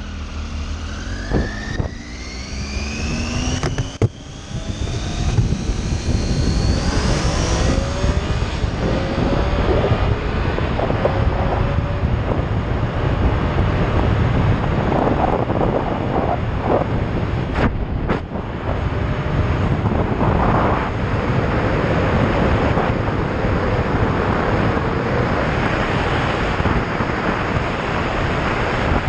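Triumph Tiger 800 XRx's three-cylinder engine accelerating hard from a stop, its pitch rising through a gear, dropping briefly at a shift about four seconds in, then rising again. From about eight seconds on, wind noise over the microphone at road speed covers most of the engine.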